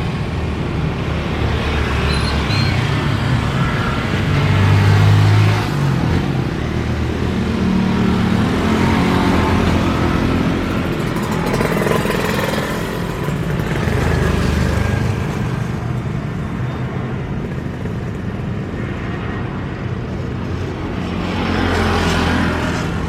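Steady rumble of vehicle engines, swelling as something passes about five seconds in and again near the end.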